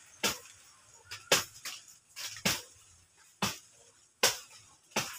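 A blade chopping into a banana plant, six sharp strokes about once a second.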